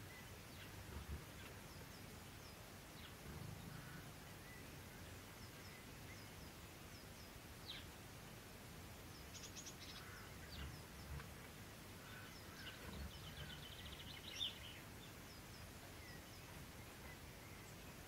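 Faint chirps and calls of small garden birds, with a rapid trill about halfway through and another, the loudest sound, a little before the end, over a few soft low knocks.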